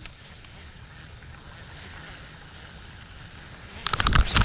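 Steady wind rumbling on the microphone over open water, then near the end a sudden loud burst of splashing and clatter, as a bass strikes at a buzzbait and misses it.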